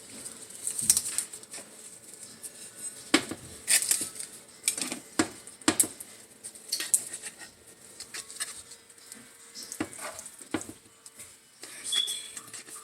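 A serving utensil clinking and scraping against a pan and dish in irregular taps as cooked ground beef is spooned into hard taco shells.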